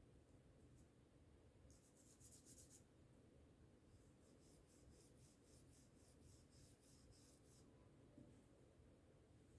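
Faint scratchy brushing strokes of a small brush scrubbing a phone: a quick run of strokes about two seconds in, then a steady series at about three strokes a second for several seconds.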